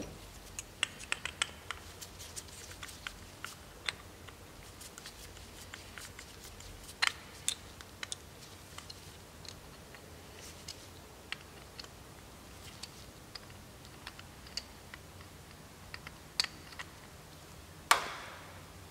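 Light scattered clicks and taps of small metal carburettor parts being handled and screwed together by gloved hands, with one louder knock near the end.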